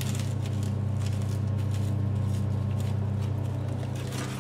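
A steady low hum, with light crackling rustles from hands pressing and handling coarse potting mix of bark, charcoal and perlite around a potted orchid.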